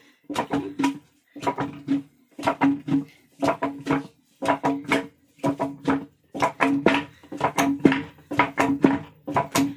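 Background music with a plucked-string instrument strummed in short rhythmic phrases about once a second, each phrase separated by a brief gap.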